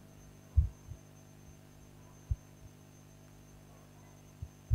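A steady low hum with a few short, low thumps: the loudest about half a second in, another at about two seconds, and two close together near the end.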